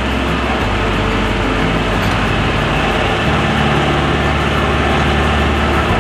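Compact farm tractor engine running steadily while driving along a gravel track, its low note shifting a little about half a second in and again around three seconds.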